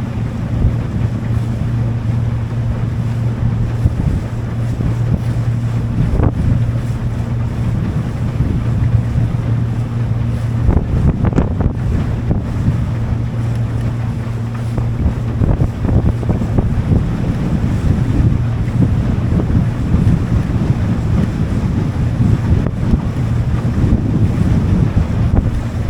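A boat under way: its engine runs at a steady pitch, with wind buffeting the microphone and water rushing past the hull.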